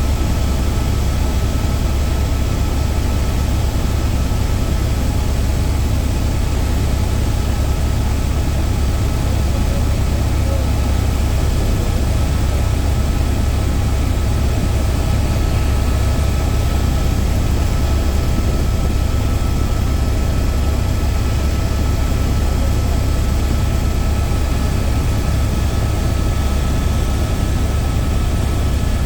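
Helicopter in flight: a loud, steady low drone of engine and rotor, with a thin whine held on one pitch above it.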